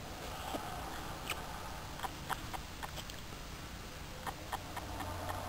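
Scale-model Ellwe twin-cylinder two-stroke marine diesel engine running: a steady low hum under light, irregular metallic clicking.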